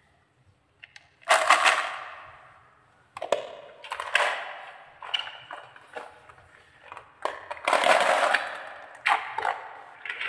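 Marbles released down a marble-run slider, clattering and rolling in about nine separate runs, each starting suddenly and dying away over a second or so; the loudest come about a second in and near eight seconds in.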